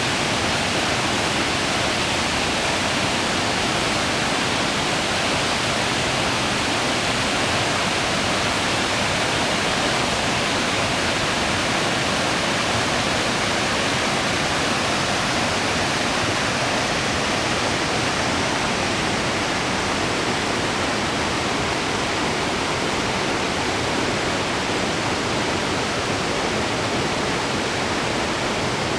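Small waterfall splashing steadily, a constant hiss of falling water with no breaks.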